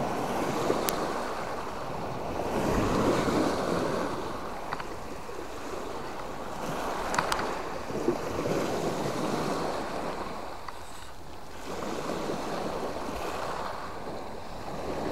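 Small Mediterranean waves washing in on a stony beach, swelling and easing three times.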